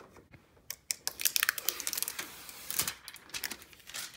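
Protective plastic film being peeled off a flat-screen TV, a quick run of crackles and small clicks, densest after about a second.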